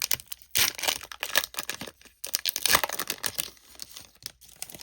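A foil trading-card pack wrapper being torn open and crinkled by hand, in several crackling bursts.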